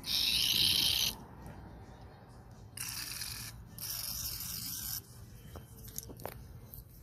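Three bursts of hissing spray blown through small-engine carburetor parts to clear the jets and passages: the first about a second long, then two more close together about three seconds in. A few light clicks of parts being handled follow.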